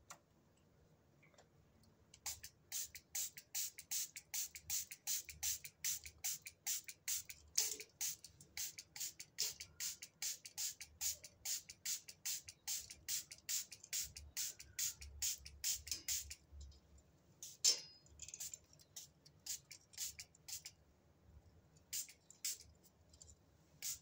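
A rapid, even series of sharp clicks, about three or four a second, starting a couple of seconds in and stopping about two-thirds of the way through, followed by scattered single clicks.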